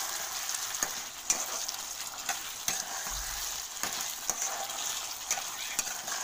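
Pointed gourds in poppy-seed paste sizzling in a hot kadai while a spatula stirs them. Steady sizzle with irregular scrapes and taps of the spatula against the pan.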